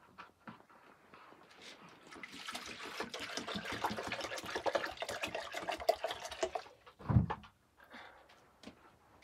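Water poured from a plastic jerrycan into a plastic jug, splashing as the jug fills for about four seconds. A single dull thump follows near the end.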